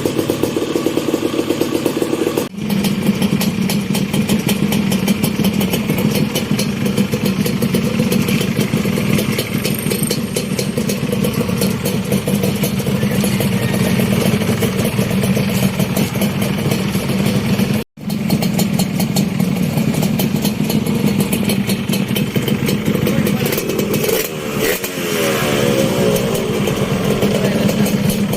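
Kawasaki KMX 125's stock two-stroke single-cylinder engine running steadily, with a quick rev that rises and falls near the end.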